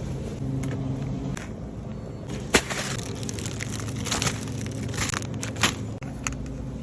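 Several sharp clicks and knocks over a steady low hum. The loudest knock comes a little over two and a half seconds in, and a few more follow over the next three seconds.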